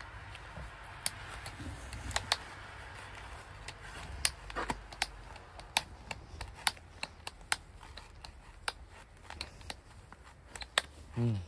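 Ratchet buckles on a snowboard-style binding strap being cranked tight over a boot: a run of sharp plastic clicks at an uneven pace.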